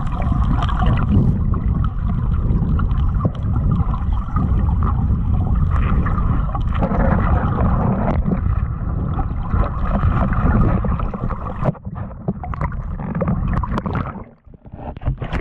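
Rushing river current heard through an underwater camera, a steady low rumble and hiss. Near the end a scatter of sharp clicks and knocks cuts through it, and the noise drops out briefly just before the end.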